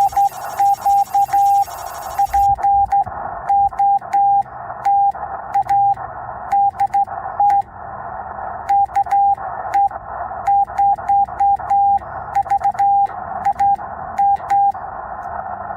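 Morse code sent by hand on a straight key, heard as the Yaesu FT-891's steady single-pitch sidetone beeping in dots and dashes. Radio receiver hiss fills the gaps between elements and cuts out at each key-down. The keying stops for about a second midway, then carries on.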